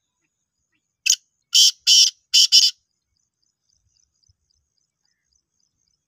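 Black francolin calling: a short note about a second in, then four loud, harsh notes in quick succession, all over in under two seconds.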